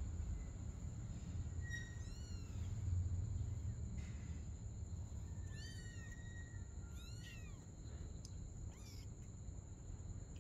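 Young kittens mewing: about four short, thin, high-pitched mews, each rising then falling in pitch, spaced a second or more apart.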